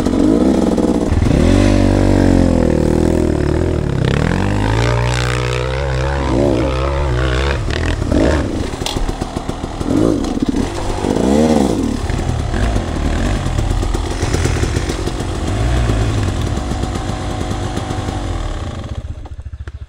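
Off-road dirt bike engines running, one revved up and down in repeated rising and falling blips over a steady low engine note. The sound fades away near the end.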